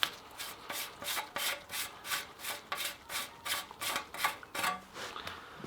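Petrol-oil mix being poured from a can into a lawnmower's fuel tank, glugging in regular pulses about four a second that stop shortly before the end.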